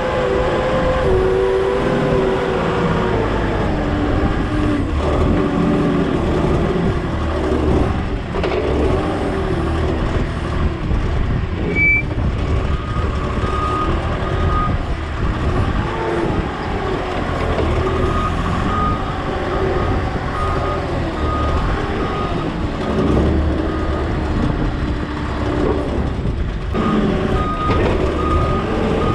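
Forklift engine running and revving up and down as it moves a load, with its reversing beeper sounding in runs of short, evenly spaced beeps from about halfway through and again near the end.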